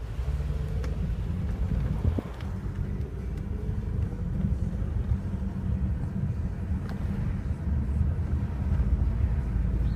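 Outdoor city-street background noise: a steady low rumble with a few faint clicks.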